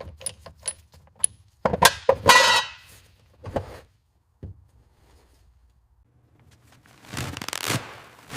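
Small metal parts and tools being handled: a quick run of sharp clicks and clinks, with a short rush of noise about two seconds in. After a pause, a longer rush of noise comes near the end.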